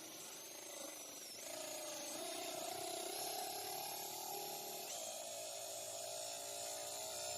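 Electric drill running a hole saw, its motor whine steady but shifting in pitch a couple of times as the load changes.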